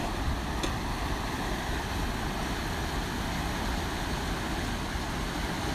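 Steady rushing of a swollen, muddy floodwater river pouring past in turbulent waves.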